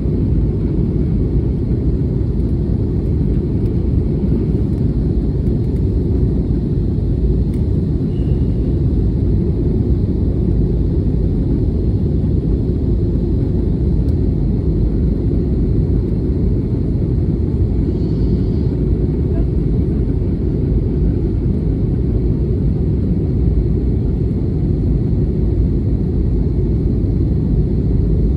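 Steady low rumble of an airliner's engines and airflow heard inside the passenger cabin in flight.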